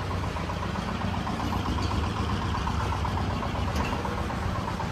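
Hyundai Venue compact SUV's engine idling steadily, with a fast, even ticking over a low hum.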